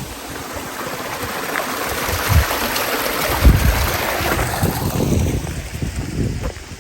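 Rushing water of a small hillside stream or little waterfall, swelling up, holding for a few seconds and fading away near the end, with a few low thumps in the middle.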